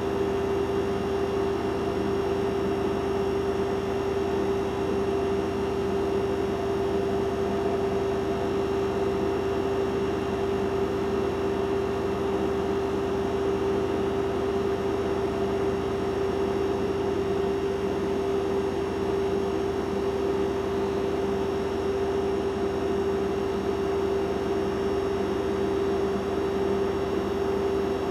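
A steady electrical hum on one held tone over a low noise, unchanging in pitch and loudness throughout.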